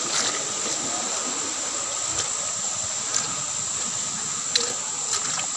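Steady hiss of stream water, with a thin high steady whine above it and a few light clicks in the second half.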